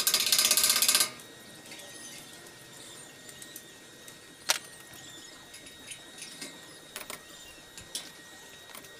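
Power drill run in one short burst of about a second with a fast rattle, followed by a few light clicks and taps.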